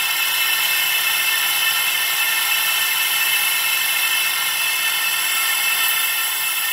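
Laser engraver working a small metal plate: a steady, high-pitched hiss laced with several steady whining tones as the beam engraves.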